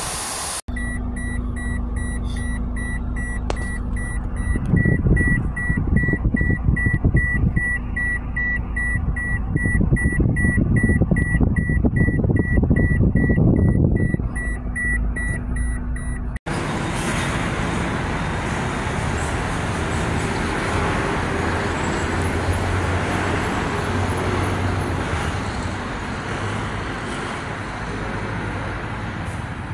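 Inside a moving car, engine and road rumble under a high electronic beep that repeats evenly and rapidly. After a sudden cut about two-thirds of the way in, a steady hiss of background noise.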